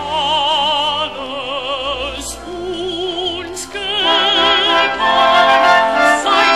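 Classical operatic singing with wide vibrato over orchestral accompaniment, softer for a moment and swelling louder about four seconds in.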